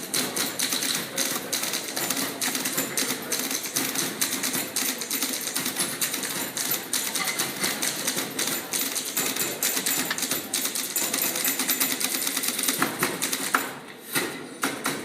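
Several manual typewriters played together as percussion: a dense, rapid clatter of keystrikes that thins out briefly about fourteen seconds in, followed by a few separate strikes.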